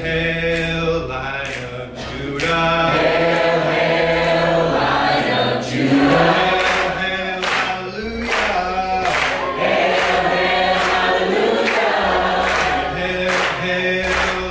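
Many voices singing a worship song together, with sustained bass notes underneath and percussion hits keeping a regular beat.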